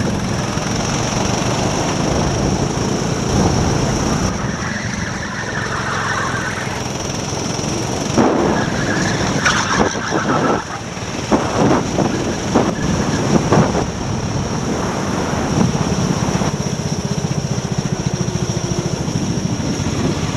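Go-kart engine running hard on track, heard from the kart itself, rising and falling with the throttle through the corners. Several sharp knocks come between about 8 and 14 seconds in, while the kart runs wheel-to-wheel with another kart.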